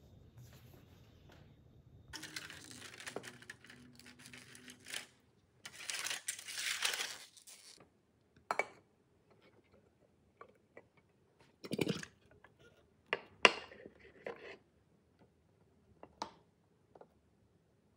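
Aluminium foil crinkling and tearing as it is pulled off a pan, then a ceramic plate and a metal pan knocking and clacking together as a flan is turned out onto the plate, with one sharp clack about halfway through the second part.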